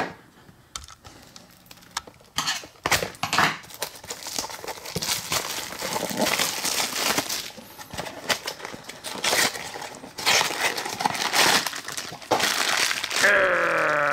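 A Funko Mystery Minis blind box and its packaging being torn open and crumpled by hand: a dense, irregular run of crinkling and tearing that starts about two seconds in.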